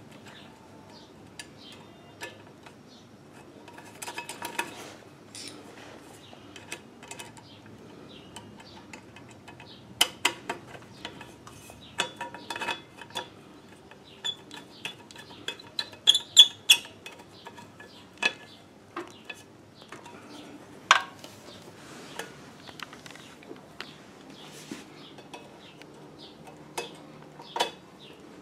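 Irregular metallic clicks and clinks of a screwdriver and hands working on a sewing machine motor's mounting bracket and linkage, busiest about halfway through.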